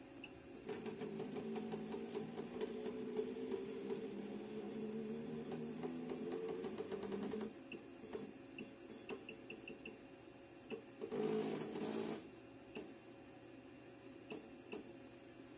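JACK JK-T1906 pattern tacker's feed-frame motors running steadily for about seven seconds as the point is jogged across the pattern from the programmer, stopping about seven and a half seconds in. Short beeps are scattered through, and a brief hiss comes about eleven seconds in.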